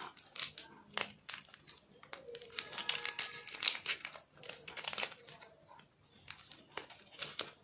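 A single-serve instant kadha sachet being handled and torn open by hand: a run of irregular crinkling crackles.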